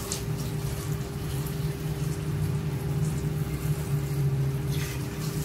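Hot water poured in a stream from a stainless steel bowl into a large pot of chopped pork offal, splashing onto the meat, over a steady low hum.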